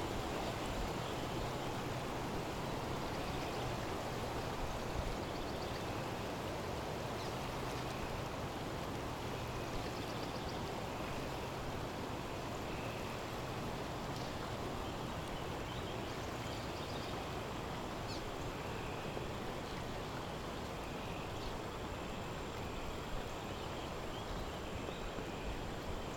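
Steady rushing of a flooded river's water, an even noise with no breaks.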